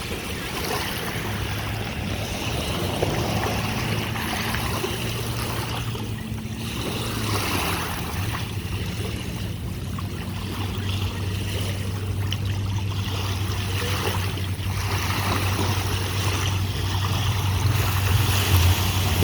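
Lake water washing at the shore, with a motorboat's engine droning steadily underneath and growing louder near the end.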